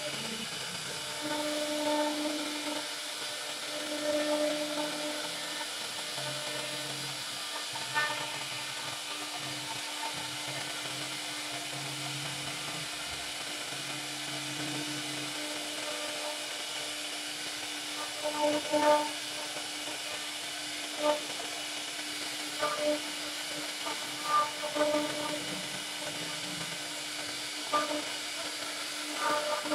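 CNC router spindle with a cutter bit carving a wooden door panel: a steady whine over a continuous hissing rush of cutting, broken by several short louder bursts in the second half.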